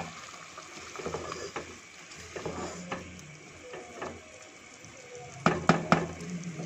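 Wooden spoon stirring chicken in a simmering, lightly sizzling pot of gravy with whole spices, scraping and clicking against the pan. Three sharp knocks of the spoon against the pot come near the end.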